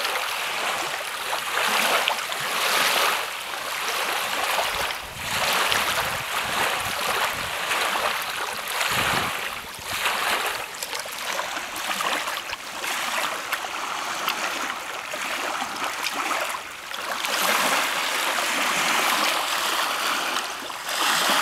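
Small lake waves lapping and washing onto a sandy beach, the rushing swelling and falling every second or two as each wave comes in.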